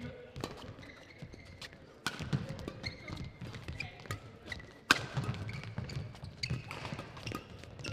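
Badminton rally: rackets striking the shuttlecock with sharp cracks every second or so, the loudest about five seconds in, among shoes squeaking and thudding on the court mat.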